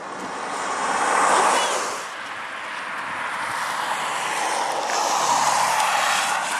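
Two road vehicles passing one after the other: a rushing tyre-and-engine noise swells to a peak about a second and a half in and fades, then a second pass-by builds and peaks near the end.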